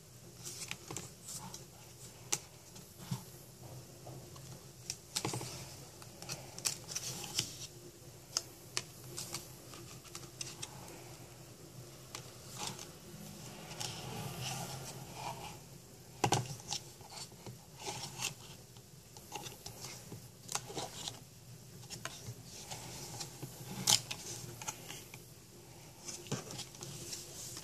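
Card flaps of an Usborne lift-the-flap board book being handled: lifted, folded back and pressed down by fingers, giving scattered light clicks, taps and rubbing. The sharpest clicks come about sixteen and twenty-four seconds in.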